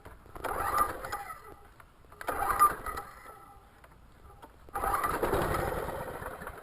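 Recoil starter rope pulled three times on a Toro recycler mower's 6.0 hp Briggs & Stratton engine running on a splash of carburetor cleaner. The engine turns over and, on the longer last pull, briefly tries to fire without catching. The spark is good; the stale-gas carburetor keeps it from running.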